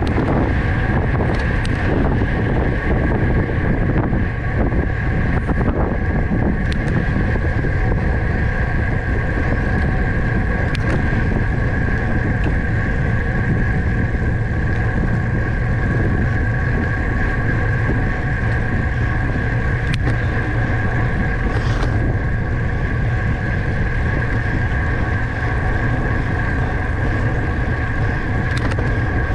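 Wind buffeting the microphone of a camera on a racing bicycle moving at speed, a steady rushing noise, with a steady high whine held over it and a few faint clicks.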